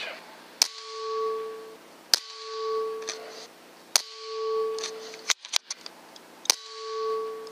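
Four shots from an Ataman ML15 6.35 mm PCP air rifle, each a sharp crack followed by a metallic ringing tone that swells and fades over about a second. After the third shot come a few quick clicks of the action being worked.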